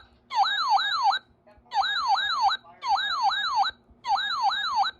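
RadioShack 12-519 weather alert radio sounding its siren alert tone at its high alert volume setting: four short bursts of a fast warbling siren, each just under a second, with brief gaps between them.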